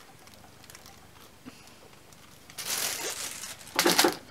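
Thin plastic packaging crinkling and rustling as it is handled. It starts about halfway through, after a quiet stretch, with a louder burst of rustling near the end.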